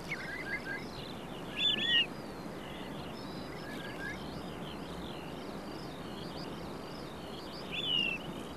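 Wild birds calling over a steady hiss: a busy high twittering runs throughout, with a few short chirps just after the start, a louder call at about two seconds and a falling call near the end.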